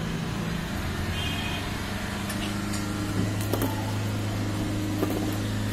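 Steady low hum of a motor running, growing stronger about three seconds in, with a few light clicks of metal gearbox parts being handled.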